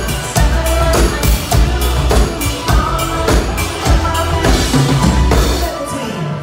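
Live band playing with a full drum kit: bass drum, snare and cymbal hits driving a steady beat over the band. The low end drops out about a second before the end, leaving cymbal ring.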